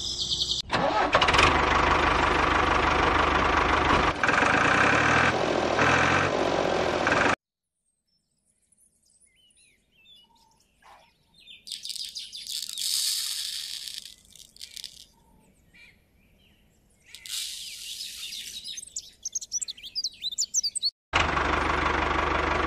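Background music, then a quiet stretch in which small mustard seeds pour out of a plastic toy trolley and rattle onto paper, in two spells of hissing, pattering sound.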